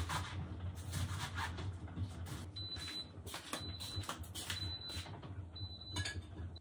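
A high electronic beep repeating about once a second, four or five times from a few seconds in, over scraping and rustling handling noise and a low steady hum.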